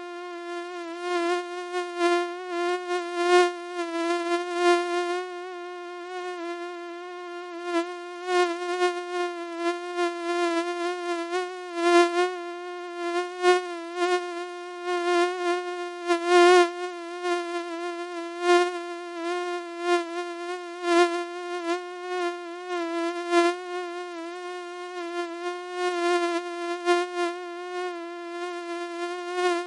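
Mosquito buzzing: one steady, high whine with a slight waver in pitch, swelling and fading in loudness over and over.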